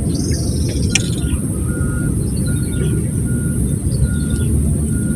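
Birds chirping over a steady low rumble, with a short note repeating several times about two-thirds of a second apart and a single sharp click about a second in.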